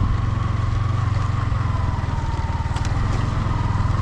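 Yamaha motorcycle engine running steadily at low speed in second gear over a rough, wet gravel track, with a brief rattle about three seconds in.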